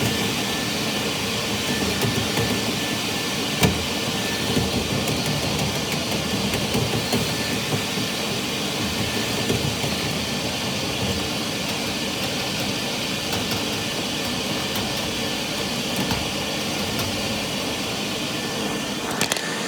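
Dryer vent cleaning equipment running steadily as a loud, even rushing noise, with scattered knocks and clicks. The sharpest knock comes about three and a half seconds in.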